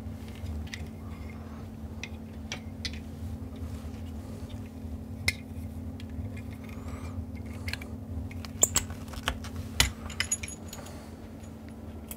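Handling clatter as a CB amplifier is set on the bench and its coax and power cable plugs are fitted: scattered clicks and clinks, one sharp one about five seconds in and a quick cluster around nine to ten seconds, over a steady low hum.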